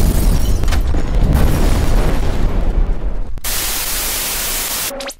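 Explosion with a deep rumble lasting about three seconds, then a sudden switch to the steady hiss of TV static for about a second and a half.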